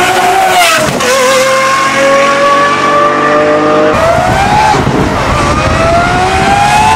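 Lamborghini Aventador SVJ Roadster's V12 accelerating hard, its pitch climbing steadily, with sharp drops about a second in and again a little past the middle before it climbs again.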